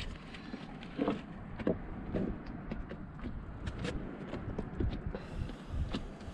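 Scattered light knocks and taps on a wooden boat deck over a faint low rumble, with a few duller thuds in the first couple of seconds.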